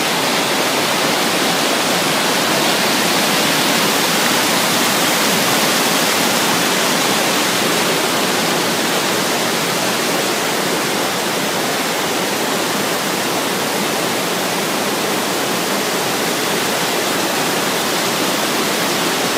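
Mountain stream rushing over boulders below a small waterfall: loud, steady water noise. It is slightly quieter from about eleven seconds in.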